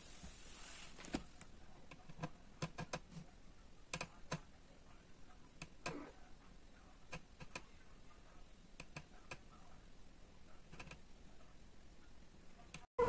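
Faint, irregular light clicks and taps, a dozen or so spread unevenly, with a soft hiss in the first second.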